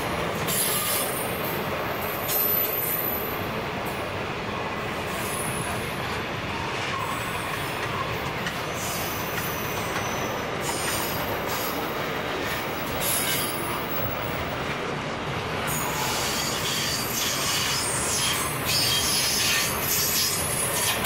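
Container wagons of a long freight train rolling steadily past, wheels running on the rails, with high-pitched wheel squeal coming and going. The sound grows a little louder near the end.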